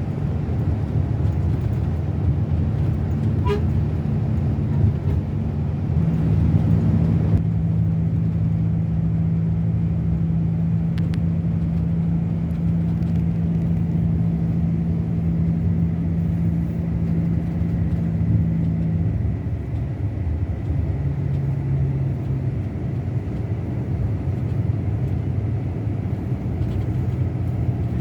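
Scania K360 bus engine running steadily under way, a low drone whose note steps up about six seconds in and falls back around nineteen seconds in as engine speed changes.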